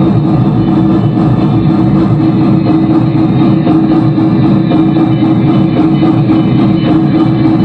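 Rock music with electric guitar and drums, with a steady beat.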